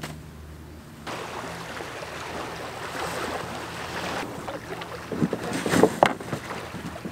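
Gear being loaded into a Swift Prospector 14 canoe: several knocks and thumps, the loudest near the end, as a dry bag is set down in the hull, over the wash of small waves on the sand.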